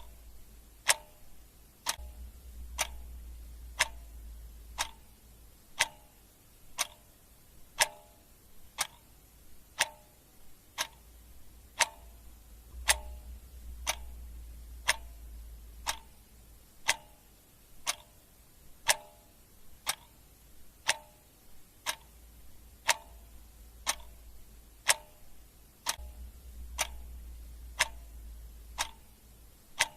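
Clock ticking sound effect: sharp, steady ticks at about one per second.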